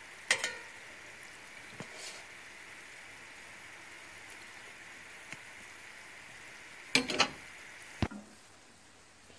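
A steel slotted spoon clinking lightly against a pan of sugar syrup while lifting and turning gulab jamun: one clink just after the start, a few together around seven seconds and one more about a second later, over a faint steady hiss.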